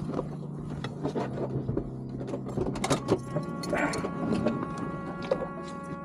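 Seatbelt unbuckling and a series of clicks, knocks and rustles as two people open the car doors and climb out. About halfway through, a steady high tone starts and holds without changing pitch.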